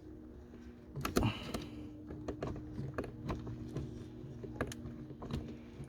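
Irregular light clicks and taps of hands working the plastic wiring connectors inside a Jaguar XF's door as the cable plugs are unplugged, with a louder cluster of clicks about a second in. A faint steady hum runs underneath.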